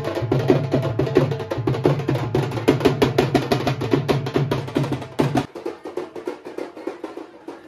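Fast, driving drumming on a stick-beaten procession drum. A deeper beat under it stops about two-thirds of the way through, and lighter strokes carry on.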